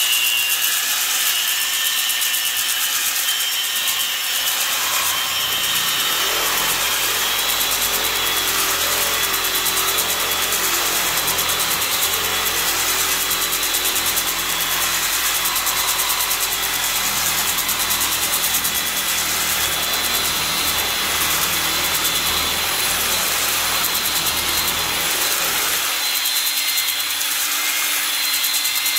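A 1/2-inch Milwaukee drill spins a ball hone in the cylinder bore of a 1936 John Deere A two-cylinder engine, running steadily with a motor whine while the hone's abrasive balls scrape along the WD-40-soaked cylinder wall, cleaning it up. A deeper rumble joins about six seconds in and drops away near the end.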